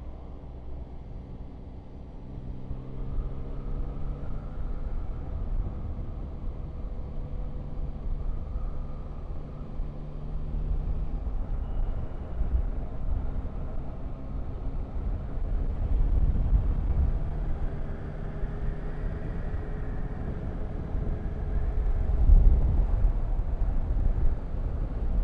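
Motorcycle engine running under way with rushing wind noise. The engine note shifts in pitch several times as the speed changes, and it swells louder about two-thirds of the way through and again near the end.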